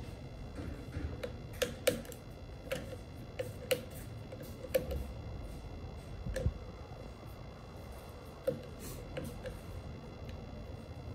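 Irregular small clicks and taps of a screwdriver turning screws in the plastic housing of a Dyson V8 stick vacuum, with the parts handled between them; about a dozen, one duller knock roughly in the middle.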